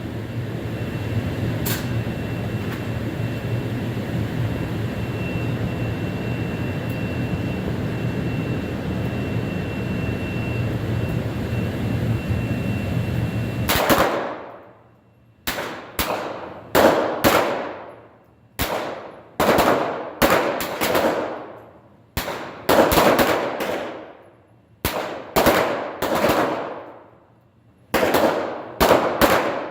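A steady background hum while the line waits, then from about halfway in a long string of pistol shots in quick succession, some nearly overlapping, each followed by a long echoing decay.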